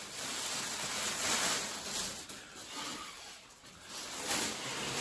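Tissue paper rustling as it is pulled off and bunched up by hand, dying down briefly a little past the middle.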